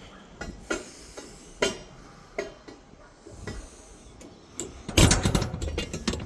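Scattered knocks and clicks, then a louder run of clattering and knocking about five seconds in.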